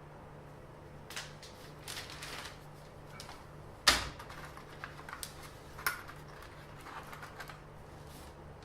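Handling noises: scattered light clicks and taps, with one sharp knock just under four seconds in.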